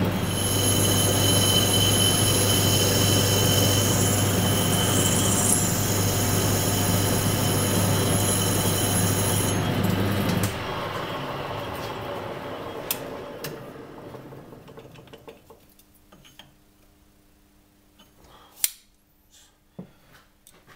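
Warco WMT800 lathe-mill combination machine running while a tool bores a counterbore in an aluminium billet: a steady motor hum with a high-pitched whine over it. The whine stops about nine and a half seconds in and the motor switches off a second later, winding down over a few seconds, followed by a few sharp clicks.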